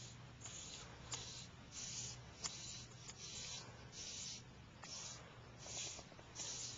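Faint rhythmic swishes of water, about one every two-thirds of a second, from someone moving through shallow water, with a few light clicks and a steady low hum underneath.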